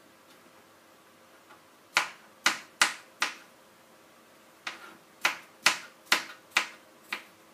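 Kitchen knife chopping fruit on a cutting board: sharp knocks of the blade hitting the board, four in a quick run, a short pause, then six more, about two a second.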